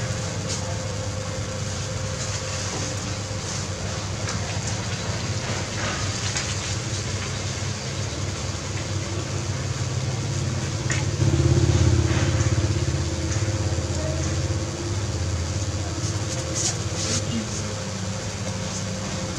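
Street traffic noise: a steady low rumble of passing vehicles, swelling louder for about two seconds near the middle as a motor vehicle goes by close, with a few light clicks on top.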